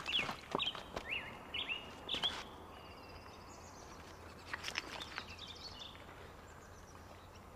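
Birds chirping: a few short, quick chirps, then a fast high trill, over quiet outdoor ambience with a few soft clicks.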